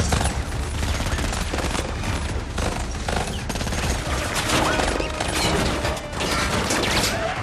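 Rapid, sustained gunfire from assault rifles in a film's mixed sound effects, shot after shot over a low rumble.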